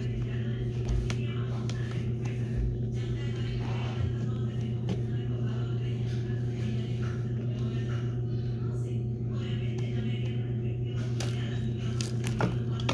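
A steady low hum with faint voices in the background, and a light knock near the end.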